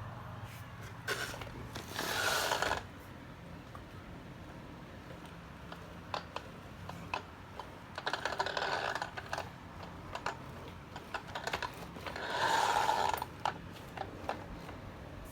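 Packaging and parts being handled: scattered light clicks and taps, with three longer rustles, the loudest near the end.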